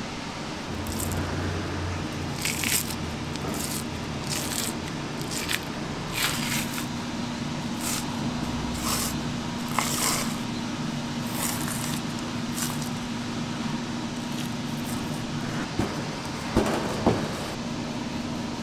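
Nitrile-gloved hands working a raw beef short rib rack on a plastic cutting board: wet squishing and tearing noises as the membrane is pulled back from the meat, over a steady kitchen hum. A few knocks on the board near the end.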